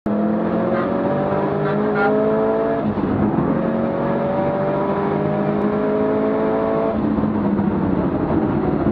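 Subaru Impreza race car's flat-four boxer engine heard from inside the cabin, pulling hard under full throttle. The engine note rises, drops at an upshift about three seconds in, rises again through the next gear, then eases off around seven seconds in.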